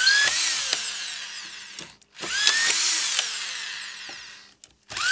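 SKIL Masters 6940MK 520 W corded screwdriver with a collated-screw autofeed attachment driving screws into wooden boards. The motor whines up sharply twice, each run dropping in pitch before it stops, and a third run starts near the end.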